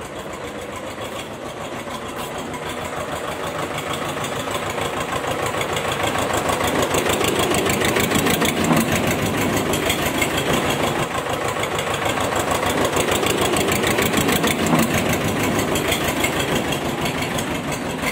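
Tractor engine running with a fast, even knocking beat, growing louder over the first several seconds and then holding steady.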